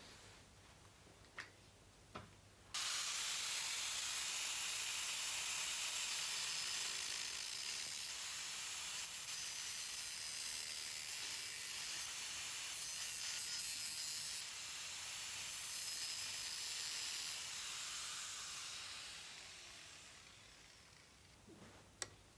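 A power cutting tool cutting a straight line through the sheet steel of a Land Rover Series bulkhead: a steady, high-pitched grinding hiss that starts abruptly about three seconds in and fades away over the last few seconds. Two light clicks come just before it starts.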